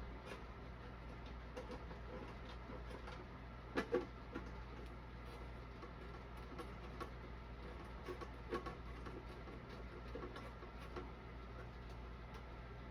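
Faint clicks, taps and scrapes of small hand work with a little finger screwdriver on screws and metal hardware, over a steady low hum; two sharper clicks come close together about four seconds in.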